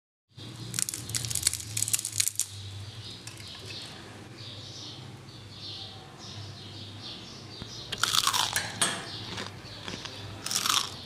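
Crisp fried shredded-potato (lachha aloo) snacks crunching as they are bitten and chewed: a cluster of crunches in the first two seconds, softer chewing after, then more crunches around eight seconds and again near the end. A steady low hum runs underneath.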